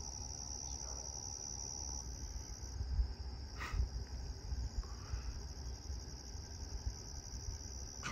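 Crickets trilling in one steady, high, continuous chorus, with a single brief sharp sound about three and a half seconds in and a low rumble underneath.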